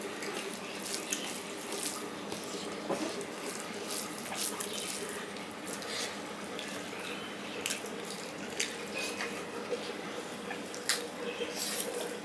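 Close-up wet chewing and lip-smacking of a person eating rice and curry by hand, with soft squelches of fingers mixing food on a steel plate. Many short clicks come irregularly over a steady background hiss.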